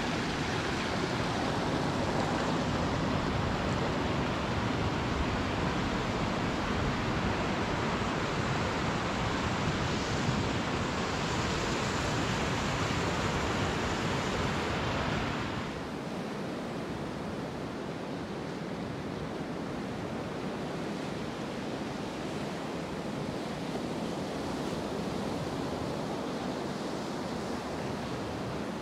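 Pacific Ocean surf breaking and washing up a sandy beach, a steady rush of waves with no single loud event. About halfway through it steps down to a quieter, duller level.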